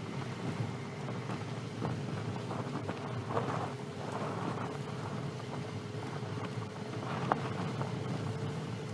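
Car tyres rolling slowly over gravel, heard from very close: a steady crackle and crunch of stones under the tread, with a sharper click about seven seconds in.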